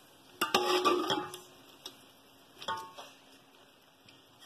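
A serving spoon clinking against a metal cooking pot while chicken korma is spooned onto rice, with a short ringing after each knock: a cluster of clicks about half a second in and another knock near the three-second mark.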